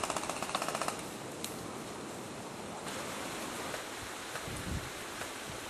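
A rapid full-auto burst from an airsoft electric gun, about a dozen shots a second, stopping about a second in. Then a steady outdoor hiss, with one dull thump near the end.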